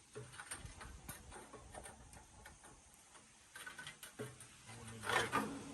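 Scattered light clicks and ticks as a broken sawmill band blade is handled and pulled out of the blade housing.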